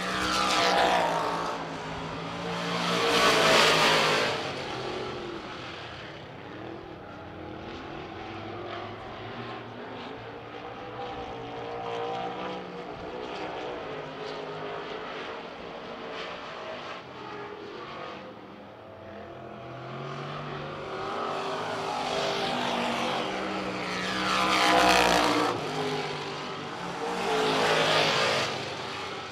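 Vintage-class dirt-track race car engines running hard at racing speed. Four loud close passes with falling pitch, two in the first four seconds and two near the end, with the engines quieter and farther off in between.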